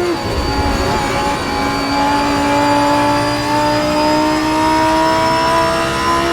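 Lamborghini Huracán Performante's naturally aspirated 5.2-litre V10, heard onboard at full throttle: an upshift right at the start, then a long, steady climb in revs through the next gear.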